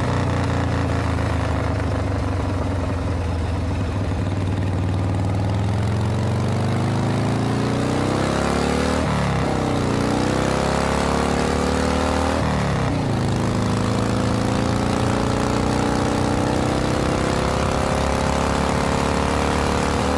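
Motor vehicle engine accelerating up through the gears. The pitch climbs steadily for several seconds, drops abruptly at a shift about nine seconds in and again a few seconds later, then climbs again.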